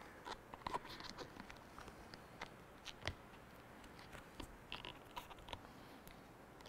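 Rubber windshield weatherstrip being pressed and worked by hand onto the edge of the glass to seat it: faint, irregular clicks and crackles, one a little louder about three seconds in.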